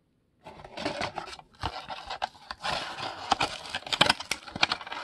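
Hands handling a cardboard trading-card mini-box and its foil-wrapped card packs: crinkling and scraping with sharp clicks and taps, starting about half a second in.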